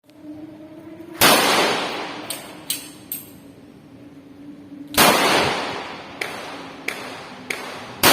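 STI 9mm pistol firing single shots, three about four seconds apart with the last right at the end, each followed by a long echoing decay. Fainter sharp cracks fall between the shots, over a faint steady hum.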